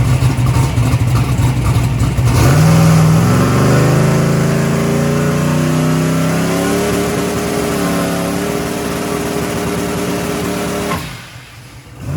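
Turbocharged hot-rod engine with a 118mm turbo running steadily, then held on the throttle from about two seconds in. Its pitch climbs slowly over several seconds as the turbo spools up and makes boost, then levels off. The tune is still being worked on to make the turbo light off quicker. The sound stops abruptly about a second before the end.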